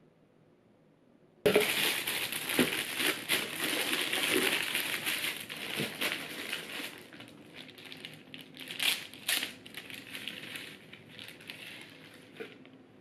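Crinkling and rustling of plastic wrapping and packing material as items are handled and lifted out of a cardboard box, with scattered sharper clicks and taps. It starts suddenly about a second and a half in and grows quieter in the last few seconds.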